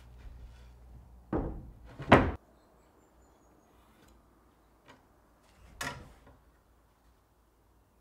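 Plywood panels knocking against a plywood workbench: two loud hollow wooden thunks about one and a half and two seconds in, then a softer knock near six seconds.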